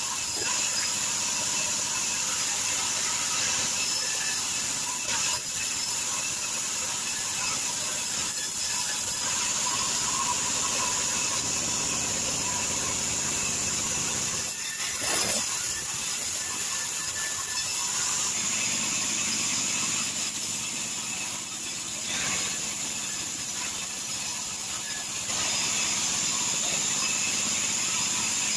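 Vertical band sawmill blade ripping timber into boards: a steady high-pitched whine and hiss of the blade cutting through the wood, easing briefly about halfway through.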